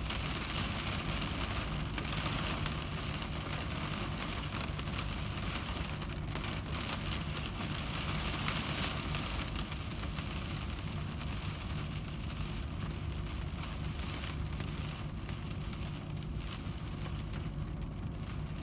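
Heavy rain pattering on a car windshield as a dense hiss of drops, over a steady low hum. The patter thins a little in the last few seconds.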